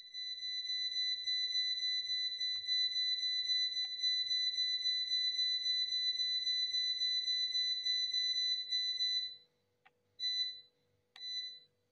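Electronic oven control panel sounding a steady high-pitched beep tone for about nine seconds, then two short beeps, as the baking temperature and time are keyed in. A few faint clicks and a low steady hum lie underneath.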